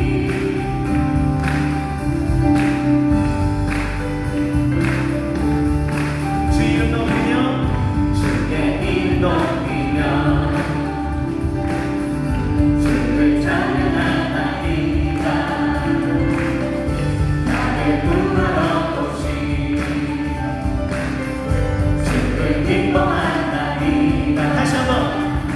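Live contemporary worship music: a male lead singer with acoustic guitar and a group of women singers, backed by keyboard, bass guitar and drum kit, with a steady beat throughout.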